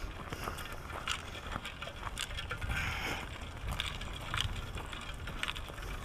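Footsteps crunching on a gravel and dry-leaf trail, an uneven step every half second or so, over a low rumble of wind on the microphone.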